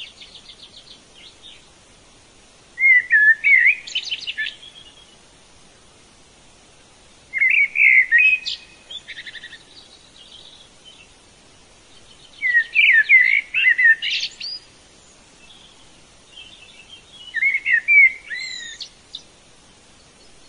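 A songbird singing: four short phrases of quick chirps and trills, each a second or two long, coming about every five seconds.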